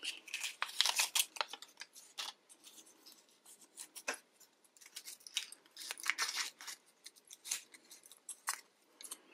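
Crinkling and crackling of a sewing machine needle packet's clear plastic sleeve as it is slid from its cardboard case and peeled open by hand, in quick irregular crackles that come and go.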